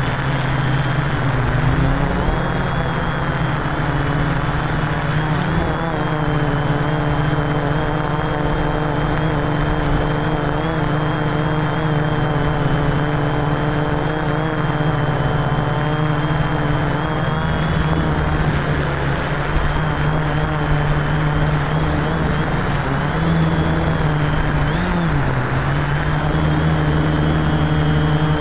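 Quadcopter's electric motors and propellers running in flight, heard from the onboard camera: a steady, loud hum of several close pitches with wind rush underneath. The pitch wavers a few times near the end as the throttle changes.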